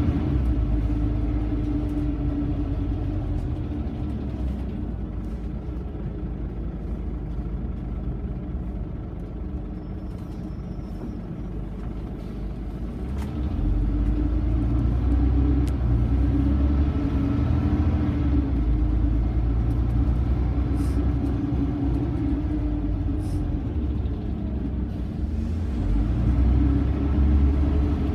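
Scania OmniCity bus heard from inside the saloon, its diesel engine running with a steady low rumble. It eases off for several seconds, then grows louder again about halfway through as the engine takes up load, with a shorter lull near the end. A few faint clicks and rattles come through.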